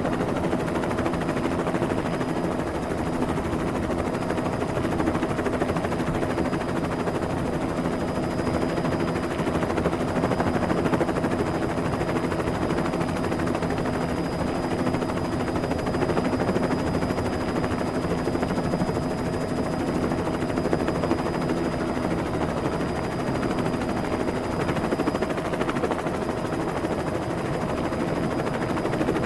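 Helicopter sound effect: steady rapid rotor chop with a constant engine hum and a thin high whine over it.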